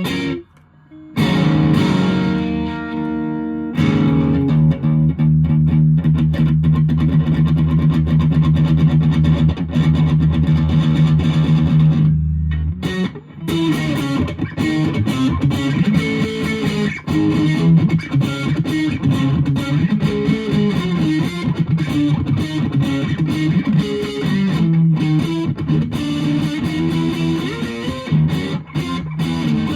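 Fender Japan Jazzmaster electric guitar played through a 1985 Japan-made Boss DS-1 distortion pedal into an ELK FSB-45 amp, picked up by a phone microphone with no processing. After a brief stop about a second in, a long held distorted chord rings for about eight seconds. Then there is a short break and busier riffing with changing notes.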